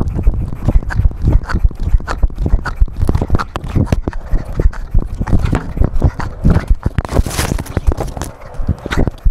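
Rapid, irregular thumps and knocks of a collar-mounted camera jostling against a running cat, several to the second, with a short noisy rush about seven seconds in.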